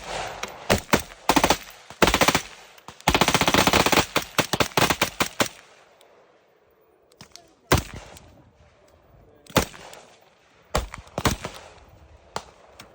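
AR-15 rifle firing: quick strings of shots, with a long, very rapid run of shots about three seconds in. After a pause of a second or two, a few single shots follow.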